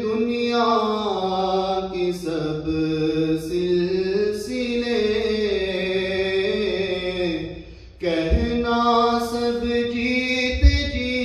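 A man's voice recites an Urdu naat unaccompanied, singing long, sliding, ornamented notes, with a short pause about eight seconds in. A brief low thump comes near the end.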